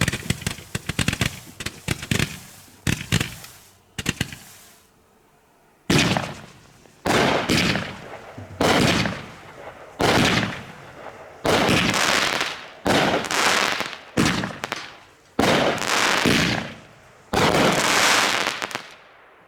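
Consumer firework cake going off: the last rapid pops of its 100-shot roman candle section die out about four seconds in. After a short pause comes the nine-shot finale of aerial shells, loud bangs about a second apart, each trailing away.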